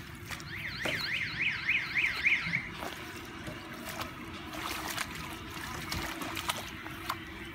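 Hands squelching and splashing in shallow muddy water among grass, with small wet clicks and drips throughout. For about two seconds near the start, a high warbling tone rises and falls about four times a second over it.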